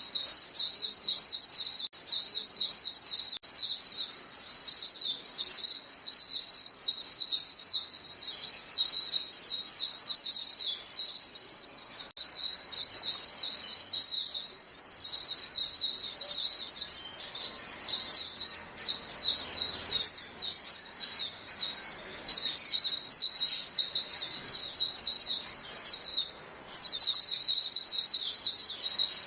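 A flock of white-eyes calling to each other: a dense, unbroken stream of rapid high chirps, with a brief break about 26 seconds in.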